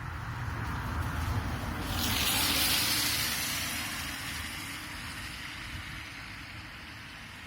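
A vehicle passing on a wet road: a low rumble builds, then tyre-spray hiss swells about two seconds in and slowly fades away.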